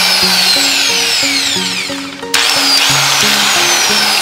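Electric angle grinder motor running on test after its switch contacts were cleaned, a dense noise with a high whine falling in pitch. It cuts out a little past halfway and starts again at once. Background music plays underneath.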